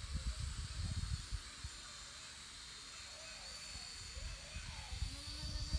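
Wind buffeting the microphone in uneven gusts, over a steady high-pitched hiss, with faint wavering calls in the middle.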